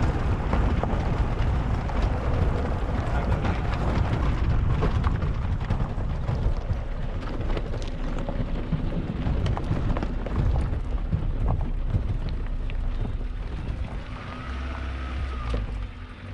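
Suzuki Jimny driving over a rough dirt and gravel trail: a steady low rumble with frequent clicks and rattles of stones under the tyres, easing a little near the end.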